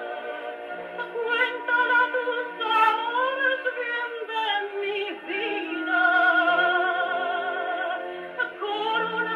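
A Columbia 113a portable wind-up gramophone playing a 1927 78 rpm record: a mezzo-soprano singing with a wavering vibrato over instrumental accompaniment. The sound is thin, with no high treble.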